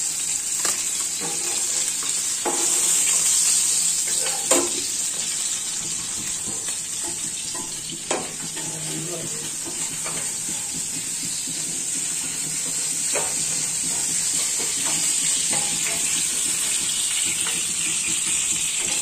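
Stinging catfish (shing) frying in hot oil in a pan: a steady sizzle, with a few sharp knocks and scrapes of a spatula against the pan as the nearly done pieces are handled.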